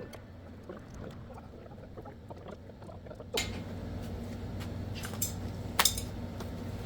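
Faint low rustling with small ticks. About halfway through, a steady low hum comes in, with a few sharp clicks and taps over it.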